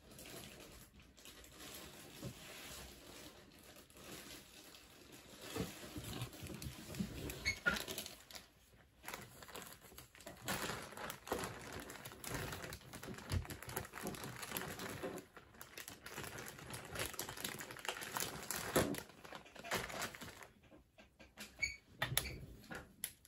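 Plastic LEGO pieces being handled and pressed together: a dense run of small clicks and rattles, thinning to a few scattered clicks near the end.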